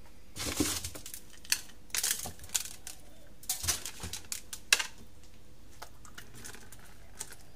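Hands arranging salt-rubbed fish in a container lined with salt: a series of short gritty scrapes and crunches, stopping about five seconds in.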